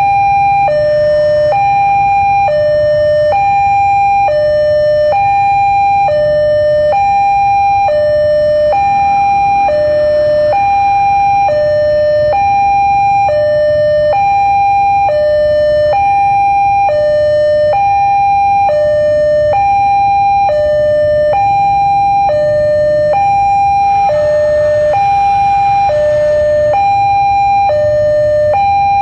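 Railway level-crossing warning alarm sounding a steady two-tone hi-lo alternation, each tone lasting a little under a second, over a low rumble.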